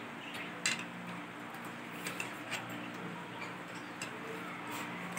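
Scattered light clicks and taps of forks and spoons against plates as noodles are eaten, the sharpest about two-thirds of a second in, over a faint steady low hum.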